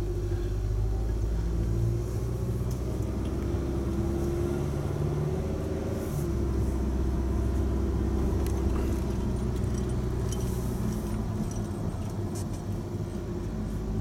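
A Honda Odyssey minivan driving slowly, heard from inside the cabin: a steady engine hum with tyre and road noise, its pitch shifting a little as the speed changes.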